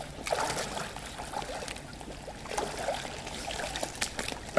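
Rubber boots wading slowly through shallow water, sloshing and splashing in uneven steps.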